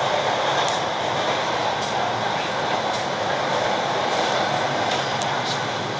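ЭД4М electric suburban train running along the track, heard from on board: a steady rolling noise of wheels on rails with a faint steady high tone and short high-pitched ticks now and then.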